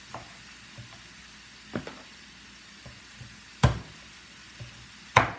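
Knife chopping chicken pieces on a cutting board: three hard chops, with a few lighter taps between them. A faint steady sizzle from the cooking pot runs underneath.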